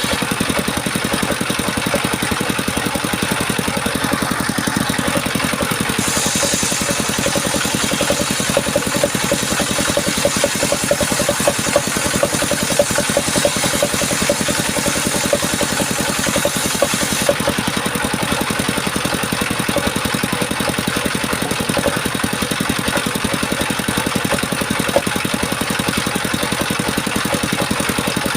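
Engine of a circular-saw sawmill running steadily, with a dense, even firing rhythm. A brighter high hiss joins it from about six to seventeen seconds in.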